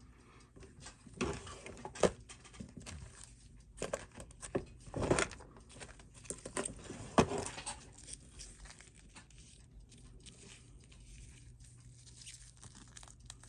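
Scattered clicks, scrapes and light knocks of small tools and parts being handled as a wristwatch is taken apart. A few sharper knocks come in the first half, and only quieter handling after that.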